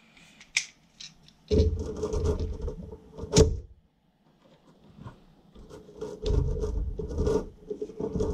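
Hard plastic parts rubbing and scraping as a DeWalt DWV9000 quick-connect dust adapter is pushed and twisted onto a tool, in two stretches of handling noise with a sharp click about three and a half seconds in.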